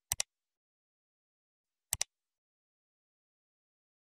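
Dead silence broken twice by a sharp double click, the two pairs about two seconds apart.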